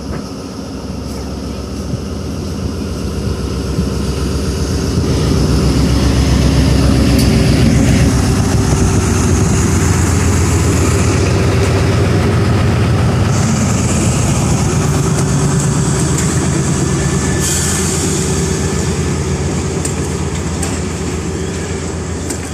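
ZCU-30 diesel-electric locomotive passing close with its engine running loud: the rumble swells over the first several seconds, peaks as the locomotive goes by, then slowly eases as the coaches roll past near the end.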